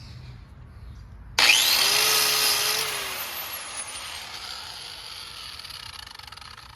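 A corded electric sanding tool switches on about a second and a half in, its motor whining up to speed with a sudden loud rush, then runs down with a falling whine, the sound fading over the next few seconds.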